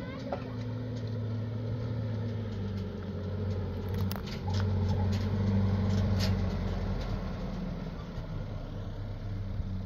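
An engine running steadily with a low hum. It drops slightly in pitch a couple of seconds in, then comes back louder about halfway through, with a few sharp clicks over it.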